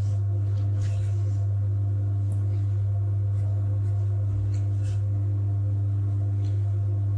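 Steady electric hum of a potter's wheel motor, with a few faint scrapes of a metal tool marking the wet clay pot.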